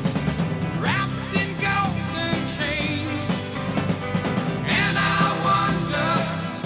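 Rock music, with a wavering high melody line running through it.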